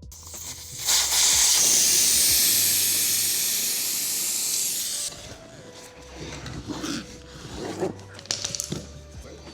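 Air hissing out of a 20x4 fat e-bike tire as it is deflated for removal. The hiss starts about a second in, fades slightly over about four seconds and stops abruptly. Small clicks and knocks of the wheel being handled follow.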